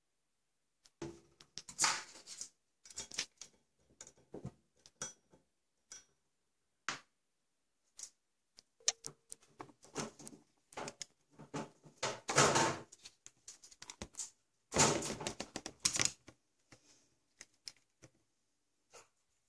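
An Amazon parrot moving about among rubber toys on a hard tabletop: irregular bursts of clicking and tapping with short quiet gaps, loudest about two, twelve and fifteen seconds in.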